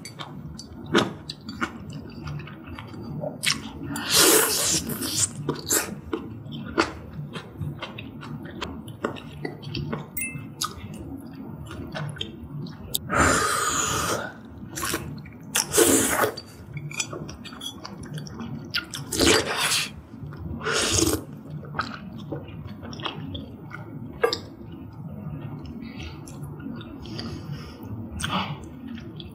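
Close-miked eating of malatang: steady wet chewing, broken by about five loud slurps of noodles and broth. The longest slurp comes about thirteen seconds in.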